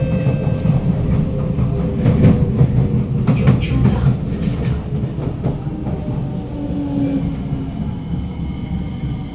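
Kawasaki Nippon Sharyo C751B metro train car heard from inside as it slows into a station: a steady wheel and running rumble, with a motor whine that falls in pitch and a cluster of sharp knocks about two to four seconds in. The car is one the uploader reports as having motor problems and worsening flat wheels.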